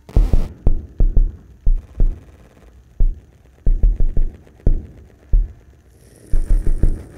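Live electronic music: deep, irregular electronic thumps, some in quick clusters of three to five and some alone after pauses of up to a second. A high hiss comes in about six seconds in.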